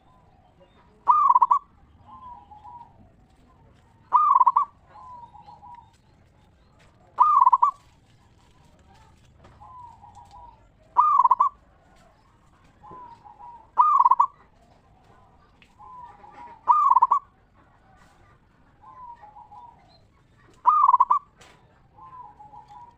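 Zebra dove (perkutut) song: a loud cooing phrase about every three seconds, seven in all, each followed by a softer, lower run of notes.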